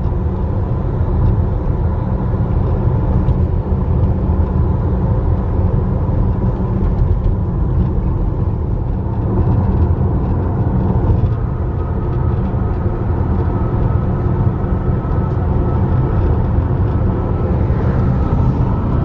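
Road noise heard from inside a moving car's cabin: a steady low rumble of tyres and engine, with a faint steady hum higher up.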